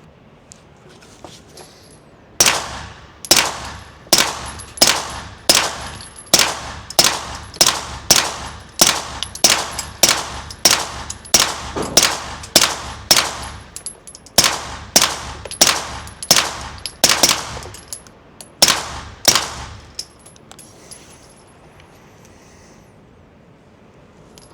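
Springfield Armory KUNA 9mm pistol firing a long string of suppressed shots through a Silencer Co. Osprey suppressor, about two shots a second, with a brief pause past the middle before the string stops.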